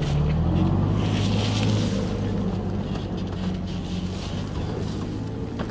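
Toyota Tacoma pickup's engine running as the truck drives off up a dirt hill, growing steadily fainter as it pulls away.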